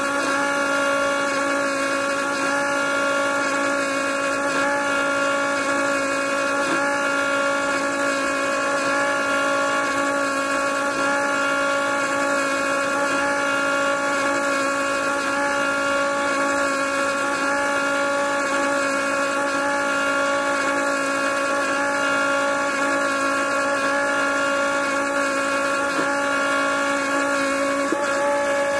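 Small DC motor of a homemade juicer running steadily at full speed, a constant whine of several tones.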